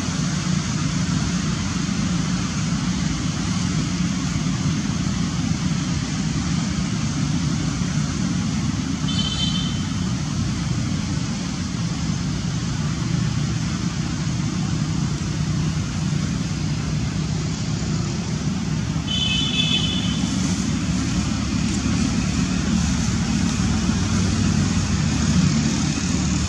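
Steady rumble of road traffic, with two short high-pitched chirps, one about nine seconds in and one about nineteen seconds in.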